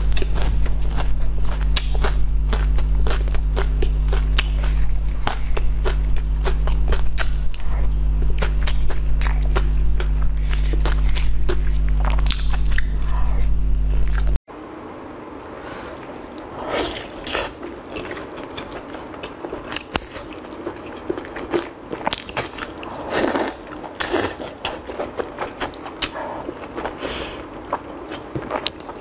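Close-miked eating sounds: biting, chewing and wet mouth clicks. A steady low hum runs under the first half and stops abruptly at a cut about halfway, after which the chewing is quieter.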